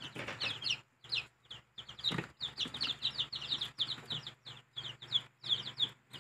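A brood of newly hatched chicks peeping continuously, many quick, high, downward-sliding cheeps overlapping, with a low steady hum underneath and a soft knock about two seconds in.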